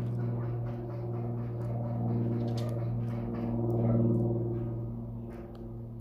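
A steady, low machine hum, like an engine running nearby, holds one pitch throughout and swells and eases slightly. A few faint, short high chirps come over it about two and a half seconds in.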